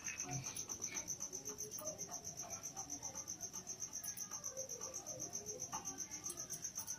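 A cricket chirping steadily: a fast, even, high-pitched pulsing trill, with faint soft sounds of hands shaping dough underneath.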